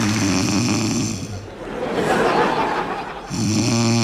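A woman snoring loudly: two long rasping snores about three seconds apart, with a hissing out-breath between them.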